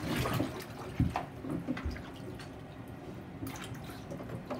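Bathwater sloshing and lapping as a child shifts and sits down in a full bathtub, with a few small splashes and knocks, the sharpest about a second in.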